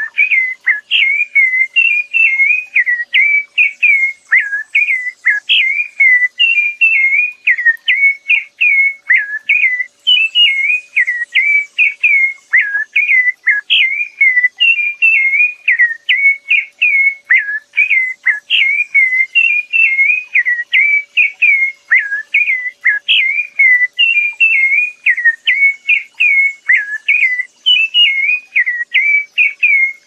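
Rufous-bellied thrush (sabiá-laranjeira) singing: a fast, unbroken run of short whistled notes, each bending down and up, about three a second.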